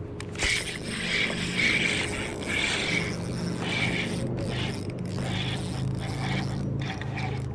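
Spinning reel being wound, its gears running in repeated spells over a light rustle of handling.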